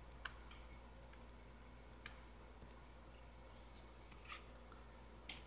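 Quiet handling of papercraft pieces and a small tool on a craft mat: two sharp clicks about two seconds apart, a few faint ticks, and a soft rustle near the end.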